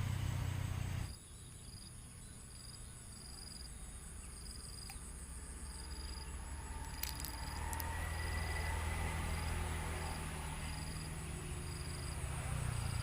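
Insects chirping: a steady high-pitched whine with a shorter pulsed chirp repeating about once a second. Under it is a low background rumble that drops away abruptly about a second in and builds back up.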